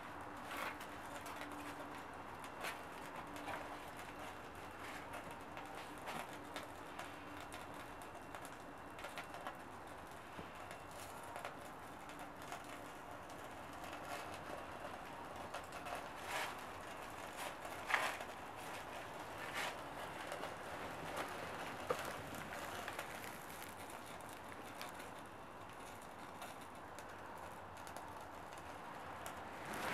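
Small kindling fires of birch bark and stearin-soaked egg carton under split logs, burning with sparse, faint crackles and pops over a quiet background hiss. A faint low bird call hums through the first half.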